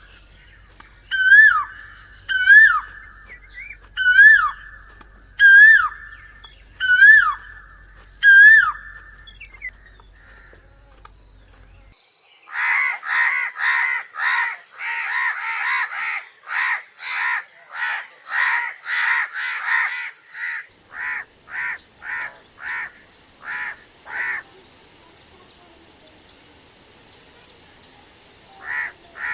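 An Asian koel calling over and over, one clear whistled note that swoops up and falls away about every second and a half, stopping after about nine seconds. Then a crow cawing in a quick run of harsh caws, about two a second, thinning out, with a few more caws near the end.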